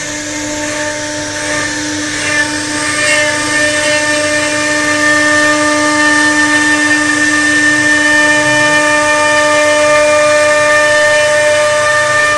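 CNC router spindle whining at a steady pitch while its small carving bit mills a circular relief into a wood panel, over the noise of the bit cutting the wood. It grows a little louder over the first few seconds.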